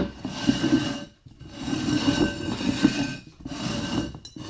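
Upturned terracotta flower pots scraping and sliding across a wooden floor as they are shuffled by hand, in three spells with a thin squeal in the scrape.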